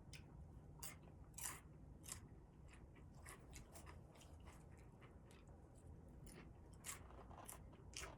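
Near silence: low room hum with faint, irregular small clicks.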